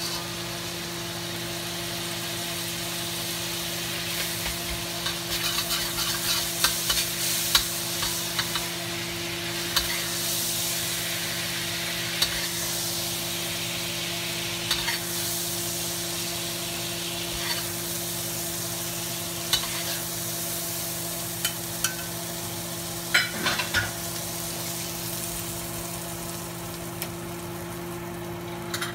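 Butter and spiced crab cooking liquid sizzling in a hot wok while a spatula stirs and scrapes the pan, with scattered clinks, busiest in the first third and again near the end. A steady hum runs underneath.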